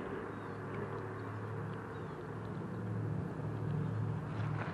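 Electric scooter riding along: a steady low hum and rumble from motor and tyres, growing louder and rougher about halfway through as it rolls off the pavement onto a gravel alley.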